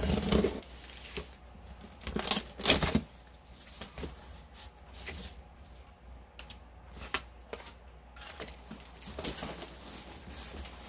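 Packing tape on a cardboard shipping box being slit and torn open, with the loudest rips at the start and around two to three seconds in, then the cardboard flaps being pulled back with scattered rustles and light knocks.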